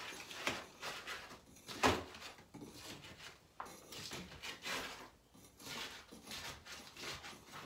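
Painted sand-wall coating being peeled and scraped off a wall: irregular scraping and crackling as flakes break away and crumbling bits fall, with one louder knock about two seconds in. The sand layer is deteriorated and comes off with little force, being stripped before plastering.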